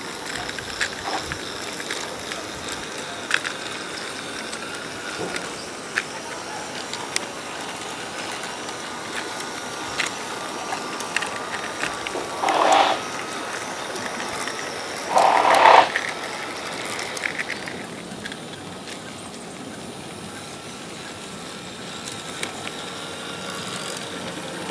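Model garden-railway locomotives running along the track, wheels clicking over the rails with a faint steady motor whine. Two louder noises of about a second each come around halfway through.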